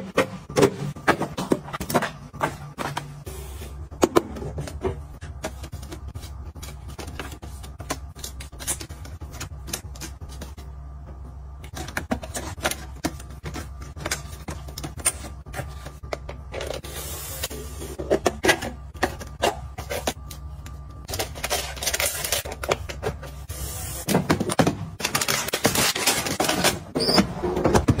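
Packaged snacks, plastic cups and bottles being handled and set into place, making a run of light clicks, taps and packaging rustles over a low steady hum. The last few seconds bring a denser stretch of rustling and scraping.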